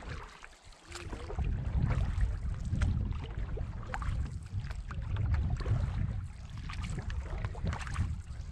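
Small splashes and drips of water around a canoe, with a low wind rumble on the microphone that comes up about a second in and stays.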